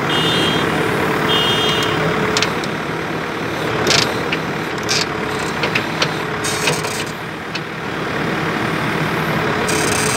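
Excavator's diesel engine running steadily, with two short high-pitched tones in the first two seconds and a few sharp knocks about four to five seconds in.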